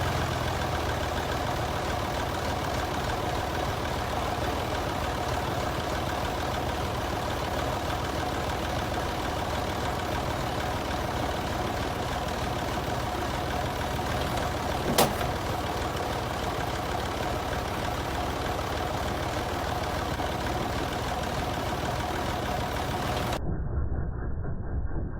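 Small diesel tractor engine of a Massey Ferguson 308 loader idling steadily, with one sharp click about fifteen seconds in; the sound turns duller near the end.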